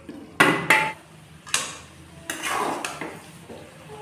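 Metal pan lid clanking twice as it is lifted off a wok, followed by a flat spatula knocking and scraping against the pan as fried pork intestine is stirred.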